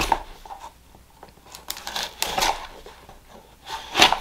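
A cardboard subscription box being opened by hand: irregular rustling and scraping of cardboard and packaging in several short bursts, the loudest near the start, about two seconds in and near the end.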